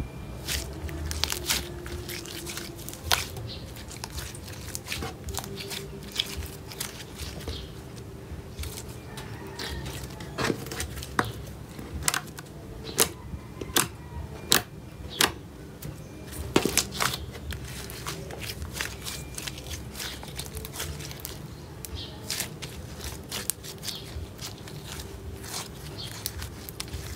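Freshly activated pink slime being kneaded, stretched and squeezed by hand, with irregular sharp wet pops and clicks as it squishes, louder and more frequent in the middle.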